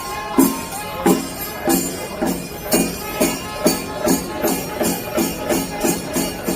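Background music with a steady beat of jingling percussion, about two strokes a second.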